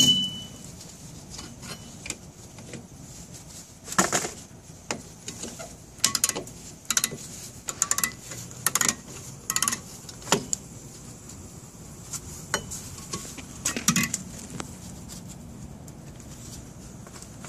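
Irregular metallic clicks and clinks of rear drum brake springs and hardware being worked off with a brake spring tool and needle-nose vise grips, and small parts being set down. A sharp click with a short ring comes at the very start.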